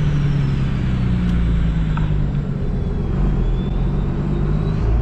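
A 5.9 12-valve Cummins turbo diesel running under its exhaust brake: a steady low drone whose pitch sinks slightly as the truck slows.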